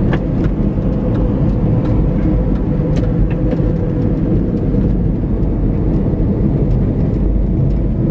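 Car road noise heard from inside the cabin while cruising on a highway: a steady low rumble of tyres and engine, with a faint steady hum.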